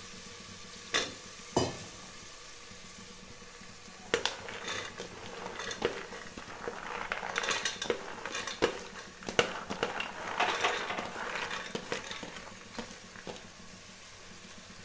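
Diced peas, carrots and beans being tipped and scraped from a plate into an aluminium pressure cooker of frying masala: a dense run of clinks and rattles as the vegetables drop in, over a light sizzle. Two sharp knocks of the spatula on the cooker come about a second in.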